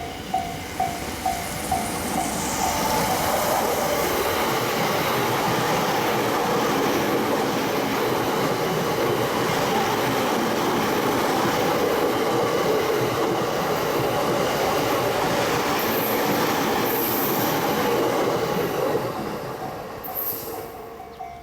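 Japanese level-crossing warning bell sounding about twice a second while a train runs over the crossing. The train's rumble and wheel noise on the rails swell about two seconds in, drown the bell, then fade near the end, when the bell comes through again.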